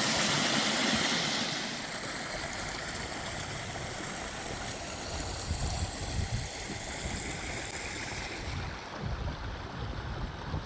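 Rushing water of a mountain stream, a steady hiss that drops in level about a second and a half in, with wind buffeting the microphone in low rumbles during the second half.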